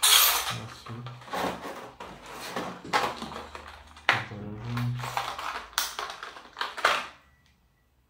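Stiff clear plastic blister packs of fountain pens on card backing being handled and shuffled across a desk. They crinkle and crackle in a series of irregular rustles, loudest at the start, that stop about seven seconds in.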